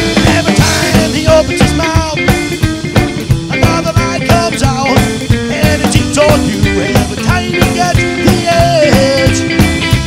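Rock and roll band playing live, with no singing: a hollow-body electric guitar with a Bigsby vibrato plays a lead line with bent notes over an upright bass and a drum kit keeping a steady beat.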